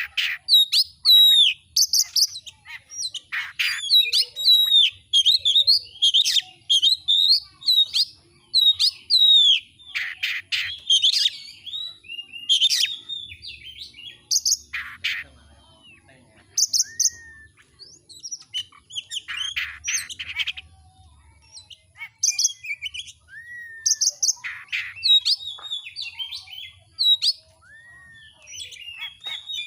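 Oriental magpie-robin (kacer) singing a varied song of clear whistles, up-and-down slurred notes and rapid trills, delivered in phrases separated by short pauses.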